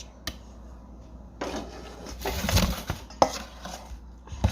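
A spoon stirring thick strawberry jam mixture in a bowl: scraping strokes with a few sharp clinks of the spoon against the bowl.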